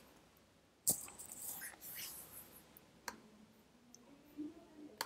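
Three sharp, single clicks about two seconds apart, from a computer pointing device clicking through web pages, with faint rustling after the first.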